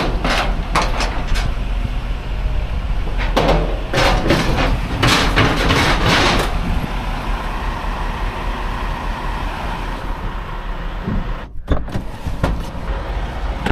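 A vehicle engine running steadily, with metallic clanks and knocks over it in the first second or so and again near the end, and a few seconds of rattling noise about four seconds in.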